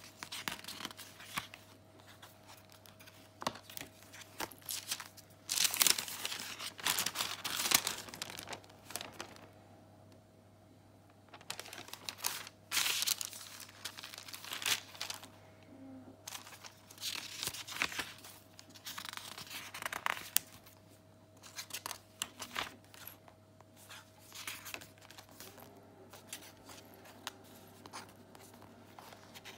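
Paper pages and card of a handmade junk journal rustling and crinkling as they are turned and handled, in irregular bursts, loudest a few seconds in.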